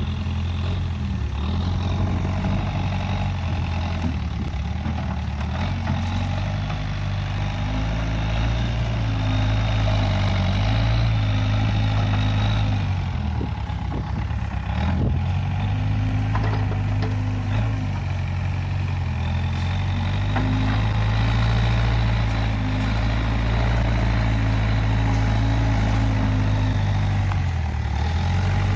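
Case 580G backhoe loader's diesel engine running steadily, its note dipping and recovering several times as it takes load, with a few faint knocks about midway.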